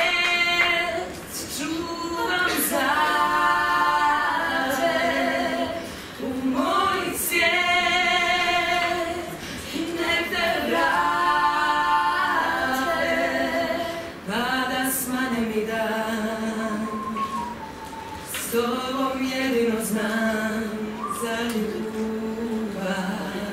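A small group of women singing a cappella in harmony, in phrases of a few seconds with short breaks between them and lower held notes toward the end.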